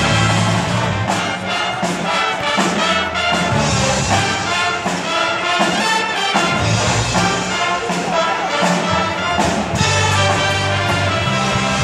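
College pep band playing a loud, brass-heavy tune: trumpets, trombones and sousaphones holding sustained chords over a drum kit beat.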